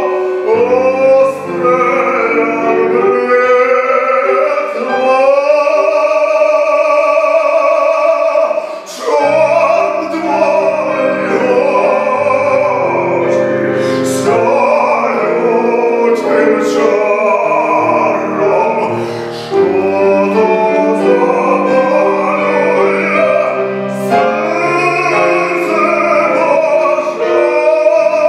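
A male classical voice singing a Ukrainian song in operatic style, with vibrato, accompanied by a Bechstein grand piano.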